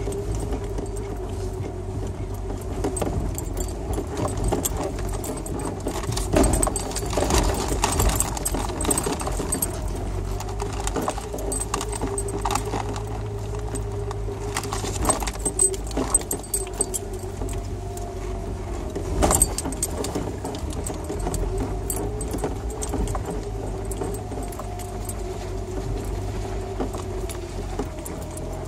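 Inside a vehicle crawling over a rough, rutted dirt road: the engine runs at a steady low drone while the cabin rattles and jangles, with sharper knocks as it jolts over rocks, heaviest about six to eight seconds in, around fifteen seconds and near nineteen seconds.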